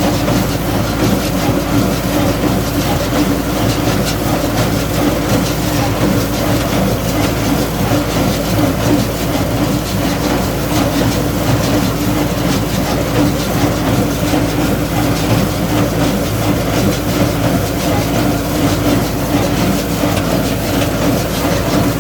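Landini Blizzard tractor running steadily while working a Welger AP 52 square baler baling straw, with a continuous mechanical rattle from the baler over the engine.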